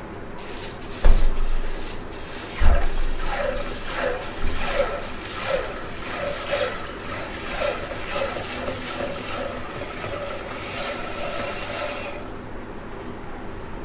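Dry jowar (sorghum) grains poured from a steel plate into a steel tin of water: a steady hiss and patter of grain with small splashes and gurgles. Two dull knocks come in the first three seconds, and the pouring stops about twelve seconds in.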